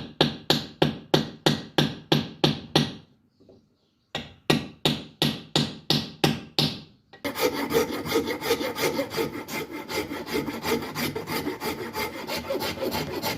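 Steel hammer peening the handle pins over into rivets: quick strikes about four a second, each with a short ring, in two runs with a brief pause between them. From about seven seconds in comes a file rasping over the handle scales in quick, continuous strokes to shape the handle.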